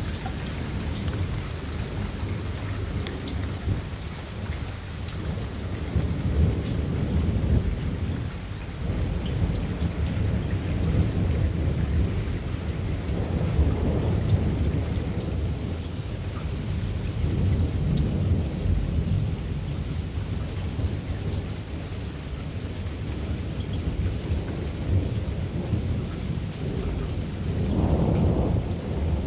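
Thunder rumbling continuously and low over steady, heavy rain, the rumble swelling several times and loudest near the end. Raindrops tick sharply on a hard surface.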